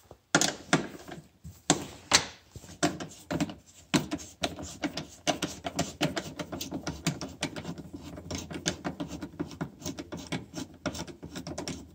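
Hand ratchet with an 8 mm socket clicking rapidly and unevenly as it backs out screws under the hood of a car.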